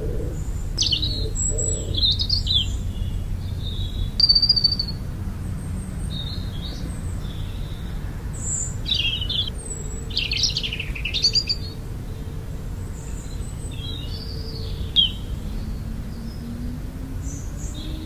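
Birds chirping: short, high calls and twittering notes in scattered bouts, over a steady low rumble.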